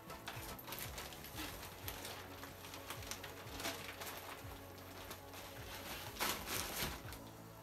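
Soft background music with scattered light clicks and rustles, a brief cluster of louder ones about six seconds in.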